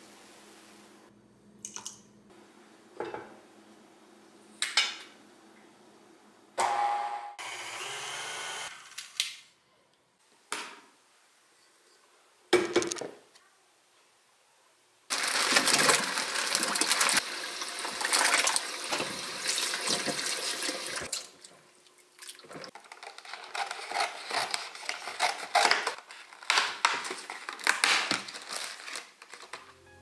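Kitchen tap running into a plastic salad spinner basket as berries are rinsed. The water starts suddenly about halfway, runs steadily for several seconds, then comes in uneven bursts. It is preceded by a few short knocks and clinks.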